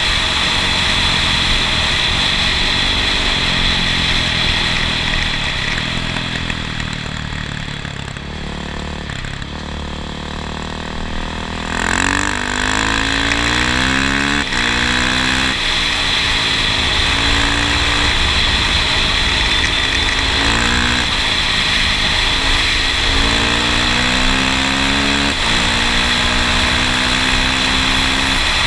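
A vehicle engine running under way. Its pitch sinks and it quietens for a few seconds. Then, from about twelve seconds in, it climbs again, rising and dropping back in steps several times, over a steady low rush.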